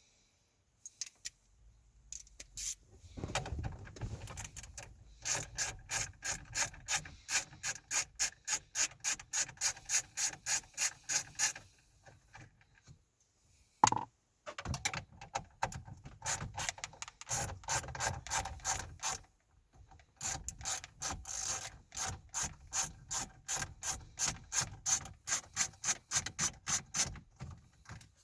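Hand ratchet clicking in quick strokes, about four a second, as it backs out the size 7 screws holding the truck's dash screen and CD player. The clicking comes in runs with short pauses between screws, and there is one sharp knock midway.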